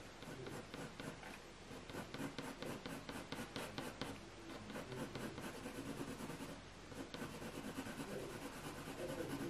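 Soft 8B graphite pencil scratching on hot-press watercolour paper in many short, quick shading strokes, laying down dark tone.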